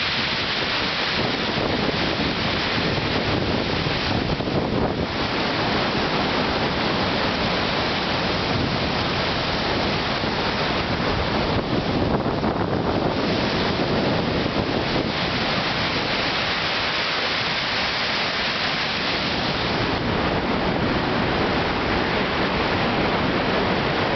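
Heavy storm surf of the Black Sea pounding the shore in a steady, continuous wash. Strong wind buffets the microphone.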